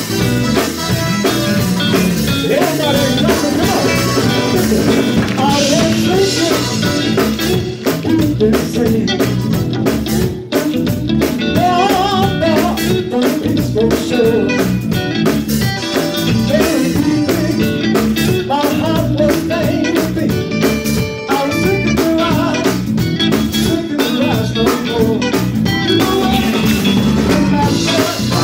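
Live gospel music: a group of men singing into microphones over a band with drums.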